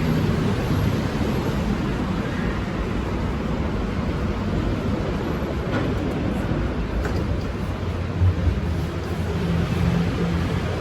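Steady low rumble and hum of a BTS Skytrain train, with a couple of faint clicks about halfway through.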